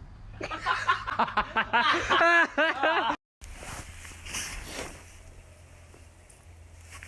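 A high-pitched voice giving a rapid run of rising-and-falling, laugh-like calls for about three seconds, then cut off abruptly; quieter mixed sounds follow.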